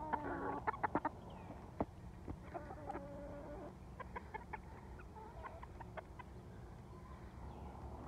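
Backyard hens clucking softly, short low calls with one more drawn-out call about three seconds in, among a few light clicks.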